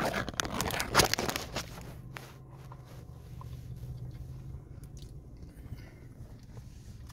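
Biting into and chewing a crispy hand-breaded chicken wrap: loud crackling in the first second and a half as the wrap and its paper wrapper are handled and bitten, then quieter chewing over a low steady hum.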